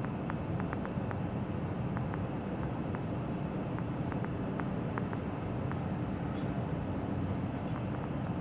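Steady low rumble of distant city traffic. Faint short ticks or chirps are scattered through it.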